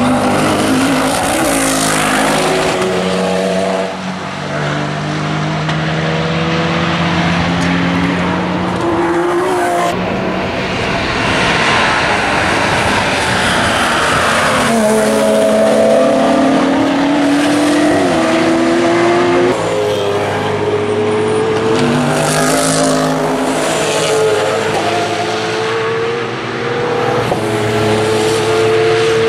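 Racing engines of GT race cars passing one after another, each note climbing and dropping through gear changes.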